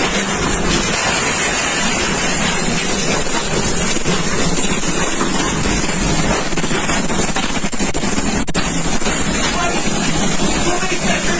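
Violent tornado wind with rain, a loud, steady rushing that buffets the microphone.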